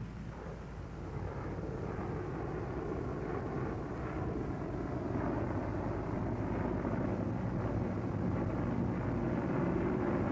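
Propeller aircraft engines running steadily, growing gradually louder.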